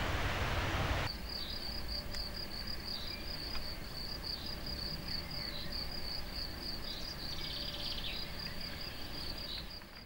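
About a second of steady rushing noise that cuts off suddenly, then a cricket chirping steadily, a high note repeated about three times a second, with a few faint bird chirps over it; it fades out at the end.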